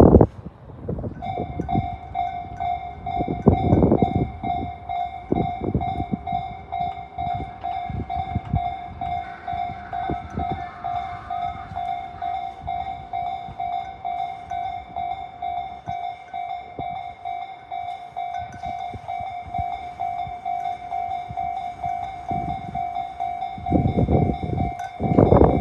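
Electronic level-crossing warning bell of the Tobu Tojo Line type, starting about a second in and then sounding one rapidly repeating tone without a break. Loud low rumbles come about four seconds in and again near the end.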